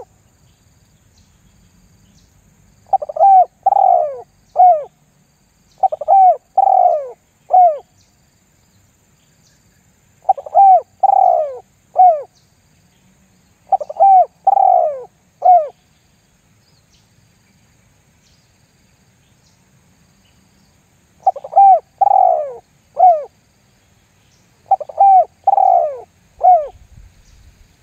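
Spotted dove cooing in the 'lambung guk' lure-call style. There are six three-note phrases, each of two longer coos and a short final one, repeated every three to four seconds, with a longer pause in the middle.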